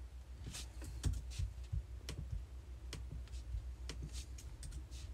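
Key presses and trackpad clicks on a MacBook laptop, about a dozen irregular light clicks, with a low steady hum underneath.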